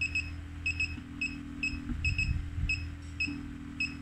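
Vacuum suction therapy machine running, set to one-second suction and one-second release: a steady low pump hum, with a higher hum that switches on and off in roughly one-second spells as it cycles between suction and release. Short electronic beeps, often in pairs, repeat throughout.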